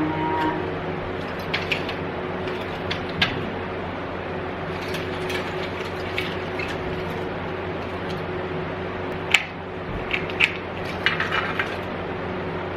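Old pinball machine parts being handled, giving scattered metallic clicks and rattles over a steady background hum. One sharp click about nine seconds in is the loudest, and a quick cluster of rattles comes near the end.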